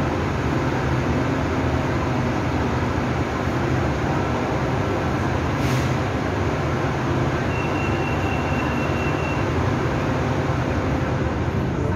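Bangkok BTS Skytrain car running along the track, heard from inside the car: a steady rumble and rush of wheels and motors. A thin high tone sounds for about two seconds in the middle.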